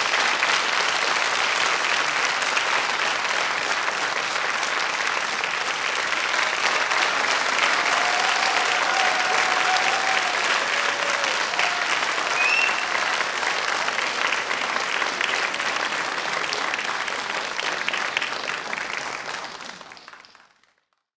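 Theatre audience applauding steadily after the performance, the clapping fading out about nineteen seconds in.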